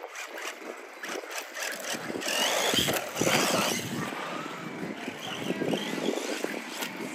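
Radio-controlled cars running on a track, their motors whining up and down in pitch with the throttle.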